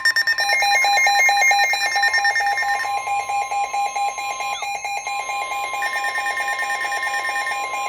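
Two emergency weather alert tones sounding together. A steady high alarm tone, typical of the NOAA Weather Radio 1050 Hz warning alarm, holds throughout, and from about half a second in a second alarm tone pulses rapidly over it.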